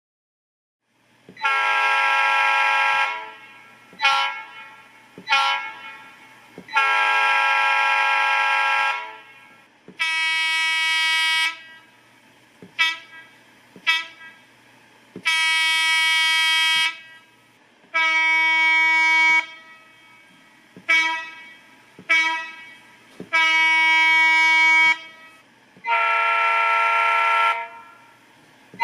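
Recorded diesel locomotive air horns played by a TCS WOWSound V4 DCC sound decoder. Several different multi-chime horns sound one after another, each blown long, short, short, long.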